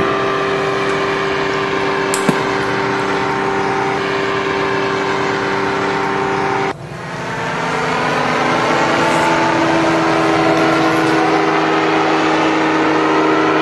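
Powered parachute's propeller engine running with a steady drone. About seven seconds in the sound breaks off sharply, then comes back at a slightly different pitch and builds back up over a second or two.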